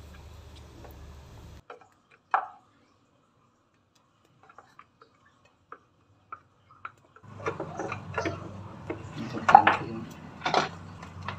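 Small clicks and light knocks of hand tools and wires being handled at a water pump's wiring: a sharper click a couple of seconds in, then a few faint ticks, and from about seven seconds on more frequent clicks and knocks over a steady low background hum.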